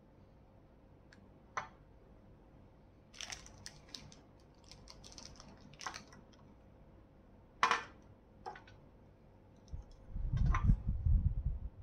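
Handling noises from an aluminium flashlight and its accessories on a glass tabletop: scattered sharp clicks and light knocks, the loudest about two-thirds of the way through. Near the end comes a second or so of low rubbing rumble as parts are handled.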